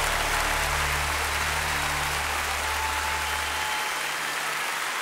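Background music with sustained low notes that stop about three and a half seconds in, over a steady noisy hiss that runs throughout.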